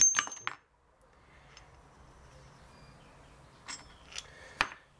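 Metal gearbox parts clinking and knocking as they are handled: a sharp ringing clink and a quick run of clicks at the start, then three smaller knocks near the end.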